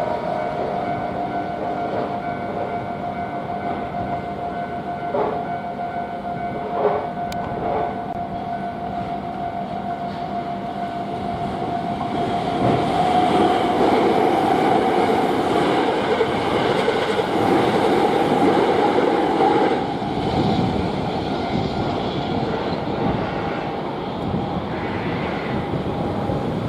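Japanese railway level-crossing alarm bell ringing steadily while an electric train passes through the crossing. The train's running noise is loudest from about 12 to 20 seconds in.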